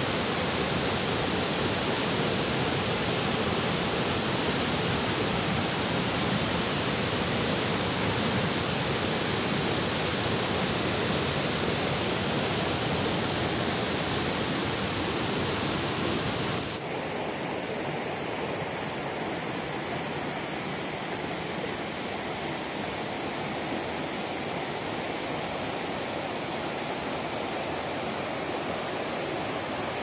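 Rushing water of a rocky mountain stream pouring over boulders and small cascades, a steady rush. About seventeen seconds in it shifts abruptly to a slightly quieter rush.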